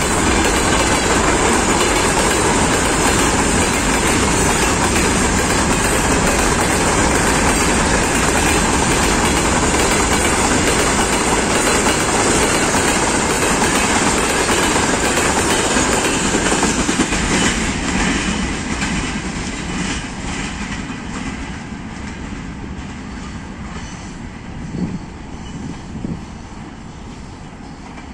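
Freight train wagons rolling past close by at speed, a loud steady rolling noise of wheels on rails. The noise falls away over the last third as the end of the train goes by.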